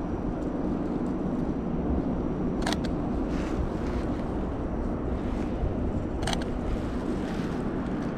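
Two Canon 90D shutter clicks, each a quick double snap, about three and a half seconds apart, over a steady low rumble of wind on the microphone.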